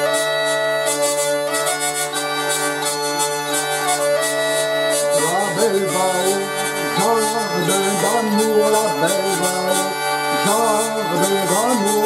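Background music: a bagpipe tune over steady drones, its melody moving from long held notes to quick, ornamented runs about halfway through.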